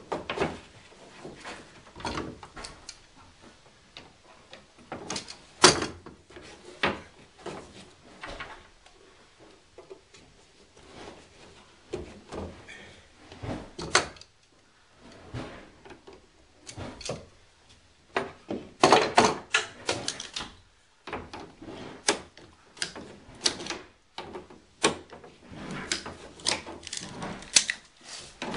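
Irregular clicks, knocks and rattles of PEX pipe and fittings being handled and fitted, with a busier run of knocks about two-thirds of the way through.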